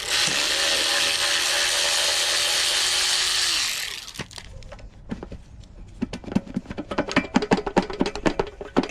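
A power tool runs steadily for about four seconds, backing bolts out of a Predator 212 engine case, then stops. It is followed by a string of quick, uneven clicks as the parts are worked loose.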